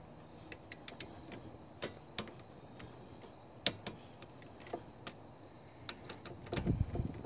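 Torque wrench tightening a brake caliper bolt: scattered sharp ratchet clicks at irregular intervals, then a few low thuds near the end as the wrench is handled.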